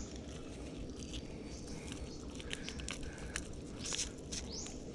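Scattered faint clicks and taps over a low outdoor rumble, with a few short, quick-rising bird chirps near the end.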